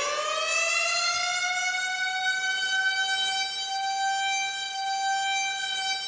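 Chicago Wolves hockey goal horn sounding one long, steady blast. Its pitch glides up over the first second, as it comes up to speed, then holds.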